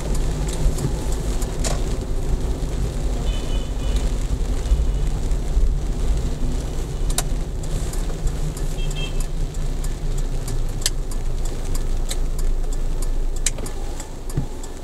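Car driving on a wet road, heard from inside the cabin: a steady low engine and tyre rumble with the hiss of the wet surface. Scattered sharp ticks run through it, and two short high beeps sound about three and a half and nine seconds in.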